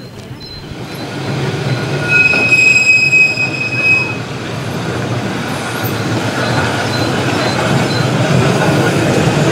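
Vintage electric tram running past on its rails: a high wheel squeal about two seconds in that lasts a couple of seconds, then a steady rumble of steel wheels on track growing louder as it comes close.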